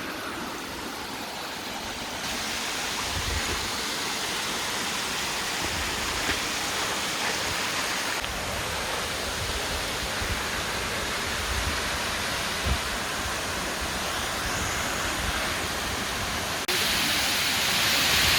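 A tall waterfall's falling water rushing in a steady roar of noise. It grows louder about two seconds in and again near the end.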